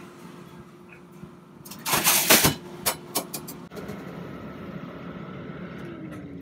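Ice vending machine running with a steady hum. About two seconds in comes a loud rush lasting about half a second, then a few sharp clicks, after which the machine settles into a steady motor drone.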